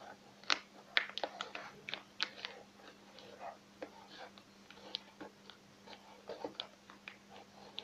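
A red colouring pen writing on a paper boat: faint, irregular scratches and small ticks as the tip moves over the folded paper.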